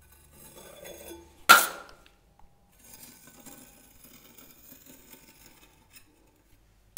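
A steel plastering spatula clinks sharply once against metal about one and a half seconds in, with a short ringing tail. After it comes faint scraping of the blade over wet travertine plaster.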